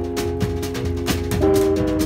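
Jazz trio of guitar, double bass and drum kit playing: held guitar notes over a walking double bass, with the drums keeping time on cymbals and snare at about four strokes a second.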